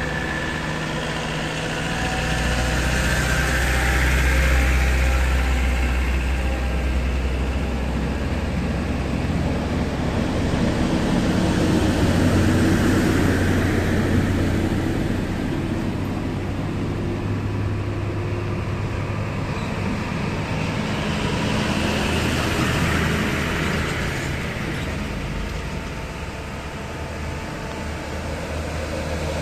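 Heavy truck engines running and idling in slow, close traffic, as a fuel tanker and dump trucks creep past. The engine sound swells twice in the first half and eases off near the end.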